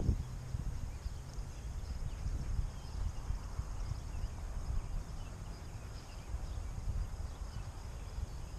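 Wind buffeting the microphone, a low, uneven rumble that keeps rising and falling.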